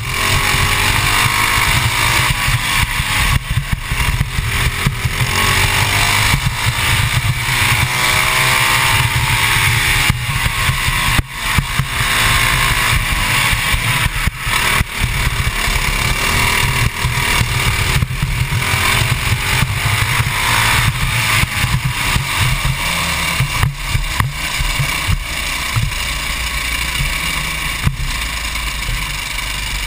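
Modified 196cc Honda GX200-based single-cylinder four-stroke kart engine at racing revs, its pitch rising on the straights and dropping back into the corners several times. Near the end it eases off.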